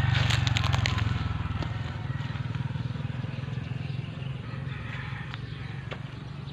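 Footsteps crunching over dry coconut palm fronds and leaf litter, with sharp crackles clustered in the first second. Under them runs a low rumble that is loudest at the start and slowly fades.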